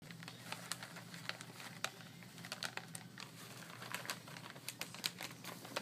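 Scattered light clicks and taps on a plastic high-chair tray as small pieces of finger food are set down and a baby pats the tray with her hand.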